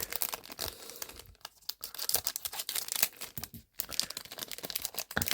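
Foil wrapper of a Japanese Pokémon booster pack crinkling and tearing as it is opened by hand, with an irregular run of crackles.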